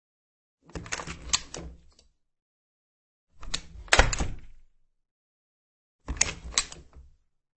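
Wooden office door opening and closing, three separate takes: each a short cluster of clicks and knocks from the handle and latch with a thud, the loudest about four seconds in, with silence between them.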